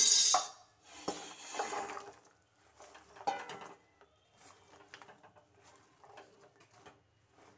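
Crisp fried goja sticks tipped into a pan of sugar syrup and tossed with a silicone spatula. A loud clatter comes near the start and more comes over the next few seconds, then it dies down to lighter knocks and scrapes against the pan.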